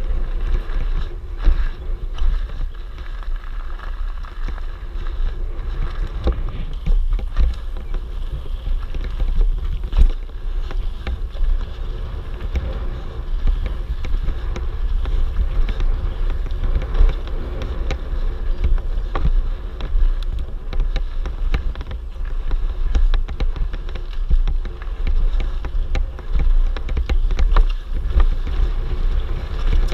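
A mountain bike ridden fast down a rough dirt and forest trail, heard from the rider's action camera. A steady rumble of wind on the microphone runs under frequent knocks and rattles as the bike goes over bumps.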